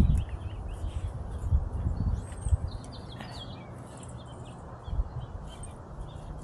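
Small songbirds chirping, trilling and whistling, over low thuds and rumble, the loudest thud right at the start.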